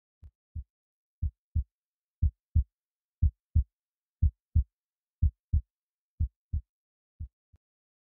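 Heartbeat sound effect: paired low lub-dub thumps, one pair a second, eight pairs in all. The beats grow louder over the first second and fade away at the end.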